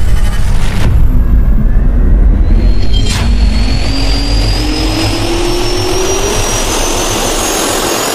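Cinematic jet-turbine sound effect spooling up: a whine that climbs steadily in pitch over a deep rumble, with a sharp hit about three seconds in.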